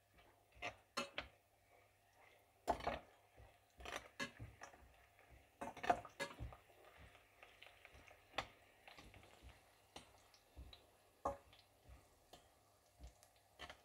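Slotted metal spatula stirring whole spices in a stainless steel pan: scattered, irregular light clicks and scrapes of metal on metal.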